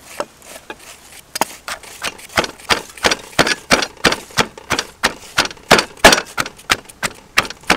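Wooden pestle pounding sliced shallots and garlic cloves in a mortar, about three dull strikes a second, starting about a second and a half in, as the aromatics are crushed into a paste.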